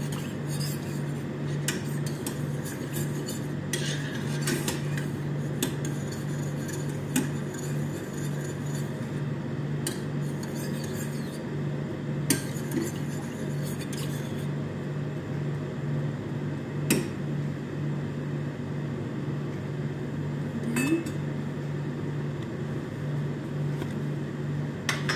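A spoon stirring cream in a stainless steel saucepan, clinking now and then against the pan's sides, over a steady low hum.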